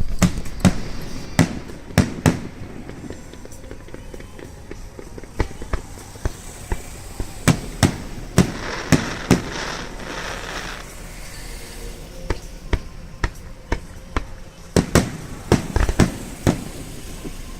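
Fireworks display going off: a string of sharp bangs at irregular intervals, with a crackling, hissing stretch in the middle and a quick cluster of bangs near the end.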